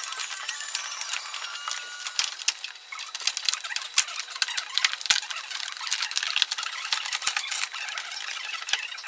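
Plastic vapour-barrier sheet being peeled off the inner door of a 2009 Honda Odyssey, pulling free of its sticky seal: continuous crinkling and crackling with many sharp ticks.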